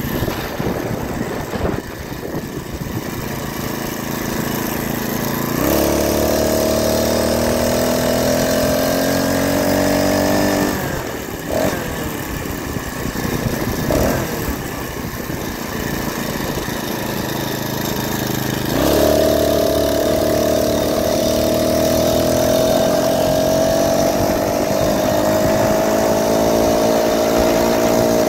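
Small 49cc four-stroke motorized-bicycle engine under way. The throttle opens about six seconds in and the note climbs slowly, drops back near eleven seconds, then opens again near nineteen seconds and holds a steady, slightly rising note.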